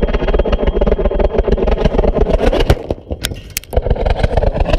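A high-power APCP solid rocket motor roars in flight with a dense crackle. About two and a half seconds in, the roar breaks off and several sharp bangs follow: the sound of the motor failing catastrophically in midair.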